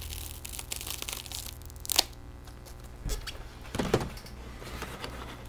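Plastic VHS clamshell cases being handled and separated: a light rustle, a sharp plastic click about two seconds in, then two soft knocks as the cases are moved, over a low steady hum.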